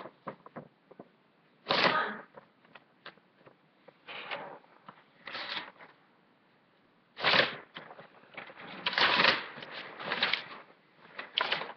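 Paper rustling and being handled close to the microphone, in several short bursts with quiet gaps between them.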